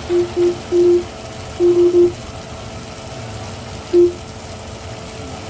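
Kitchen appliance keypad beeping as buttons are pressed: a run of short, low, single-pitch beeps, one held a little longer, then three quick beeps about two seconds in and a last single beep about four seconds in, over a steady hum.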